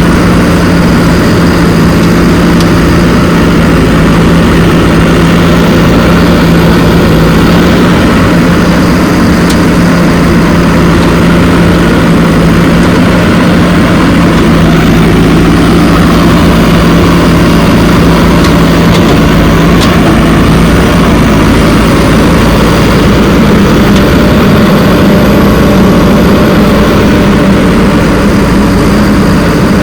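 Heavy diesel engine of earth-moving machinery running steadily, a constant hum whose pitch shifts slightly about two-thirds of the way through.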